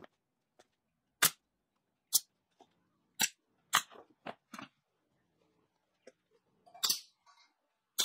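Pneumatic nail gun firing single shots into the wooden toolbox joints, five sharp cracks at uneven intervals with a longer pause before the last. Fainter knocks of the wood pieces being handled fall between the shots.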